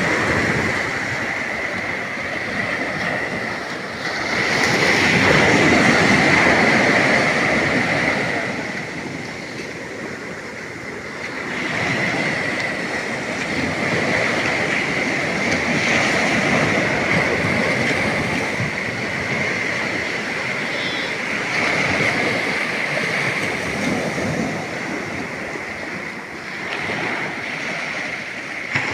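Ocean surf breaking and washing on a beach, a broad rushing noise that swells and fades over several seconds at a time. A steady high-pitched tone runs underneath.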